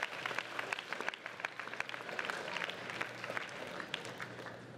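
Audience of students applauding, a dense patter of hand claps that thins out and dies down near the end.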